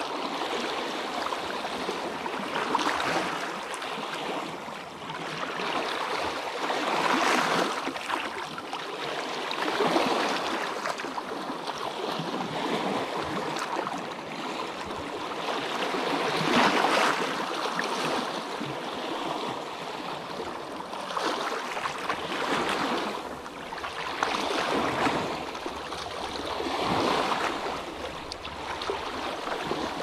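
Lake Superior waves crashing on the shore, a rushing wash of water that swells and eases every three to four seconds.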